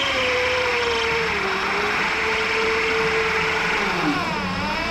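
A 2000-watt electric e-bike hub motor whining under power as it drives the propeller of an amphibious kit. The whine holds steady, dips in pitch about four seconds in, then climbs back, over a steady rushing hiss.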